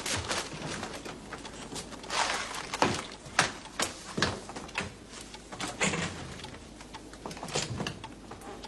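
Paper being handled: irregular crinkling and rustling as a letter is unwrapped and unfolded.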